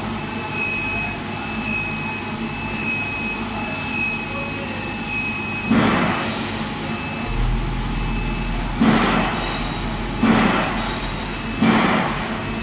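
Overhead hoist of a single-wagon vat phosphating line lifting a jig out of a tank. A low motor hum starts about seven seconds in, and a short rumbling clatter repeats roughly every second and a half from about six seconds in, over a steady plant hum.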